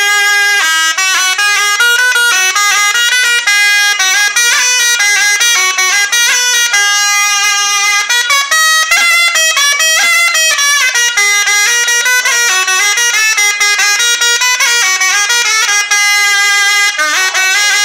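A melody played on a sannai, the long reed pipe with a flared metal bell that Gangireddu bull performers play. It runs without a break, with some notes held for about a second and quick runs of changing notes between them.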